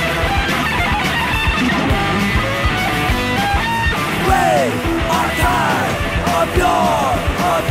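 Punk rock soundtrack music with guitar over a steady beat; falling pitch swoops come in about halfway through.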